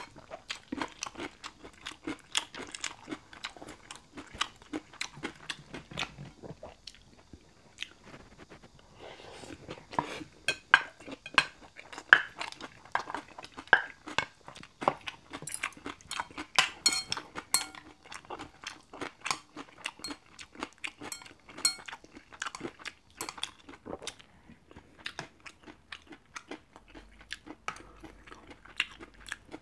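Close-miked wet chewing and mouth sounds of someone eating beef bibimbap, many small irregular smacks and clicks, with a wooden spoon scraping and scooping in the bowl.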